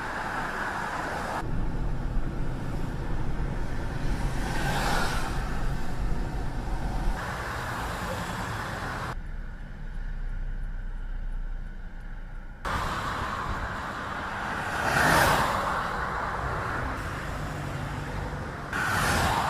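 Outdoor traffic-like noise: a steady low rumble with two swells, like vehicles passing, about 5 and 15 seconds in. The sound changes abruptly several times.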